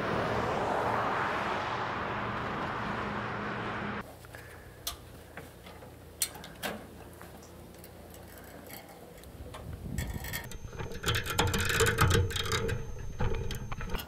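A steady rushing noise, then scattered clicks and metal knocks. From about ten seconds a louder, irregular metallic rattling over a low rumble begins as the wood chipper's folded steel feed conveyor is swung down.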